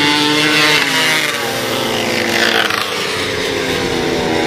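Several vintage flat-track racing motorcycles running at race speed, their engine notes overlapping and falling slowly in pitch across the few seconds.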